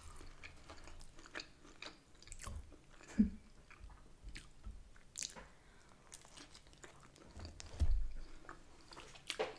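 Close-up chewing and biting of salami pizza, with scattered small mouth clicks and a few louder bites spread through.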